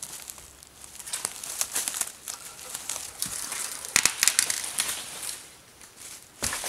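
Footsteps crunching through dry forest undergrowth, twigs and brush crackling and snapping irregularly, with a louder cluster of snaps about four seconds in and another near the end.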